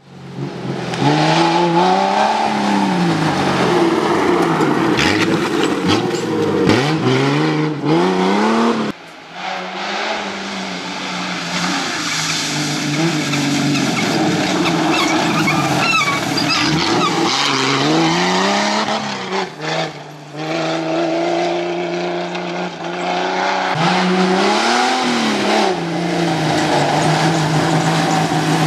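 Jeep CJ5 off-road race vehicle's engine revving hard, its pitch climbing and dropping again and again as it accelerates and changes gear, over the noise of tyres on loose dirt and gravel. The sound breaks off abruptly a couple of times.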